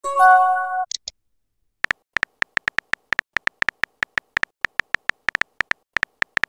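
Messaging app sounds: a short chime of a few steady tones as a message bubble pops in, then, about a second later, a long run of quick, irregular keyboard tap clicks as a message is typed letter by letter.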